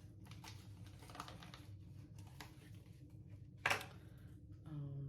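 Scattered light clicks and taps of small objects being handled, with one sharper click about three and a half seconds in and a brief hummed voice just before the end.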